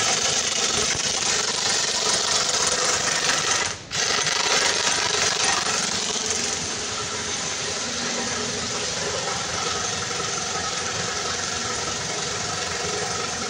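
Oil-flushing pump running with a loud, dense, steady noise, circulating flushing oil through a Cummins QST30 engine's lubrication system to clear oil contaminated with coolant. It cuts out for a moment about four seconds in, then carries on slightly quieter.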